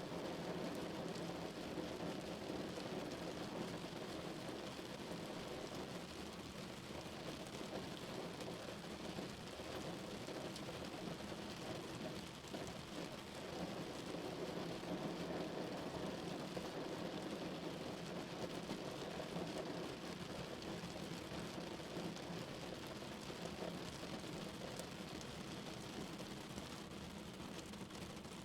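Rain falling steadily on a car's roof and windows, heard from inside the cabin as a constant patter of drops.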